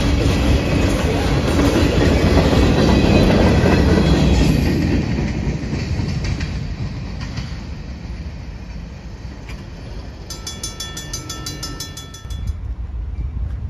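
Freight cars rolling past over the rails with clickety-clack, loud for the first four seconds or so, then fading as the end of the train moves away. Near the end a rapid, evenly repeating ringing is heard, from the grade-crossing bell.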